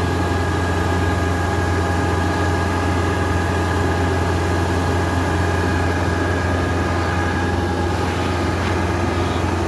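Yanmar rice combine harvester's diesel engine and threshing machinery running at a steady speed: a constant low drone with a steady whine above it.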